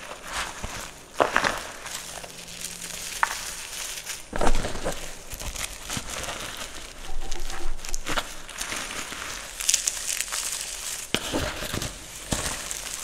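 Gym chalk mixed with glitter and sequins being crushed and crumbled by hand: continuous powdery, crunchy crumbling, with sharper, louder crunches every few seconds as the hand presses down.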